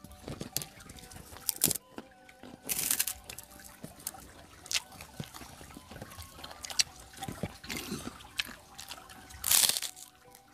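Water trickling steadily, with scattered short clicks and two louder rushing bursts, one about three seconds in and one near the end.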